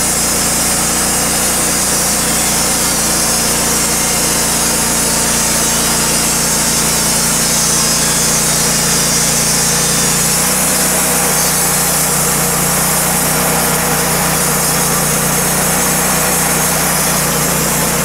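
Wood-Mizer portable band sawmill running, its engine under steady load as the band blade saws lengthwise through a large oak cant. The engine note shifts slightly about ten seconds in.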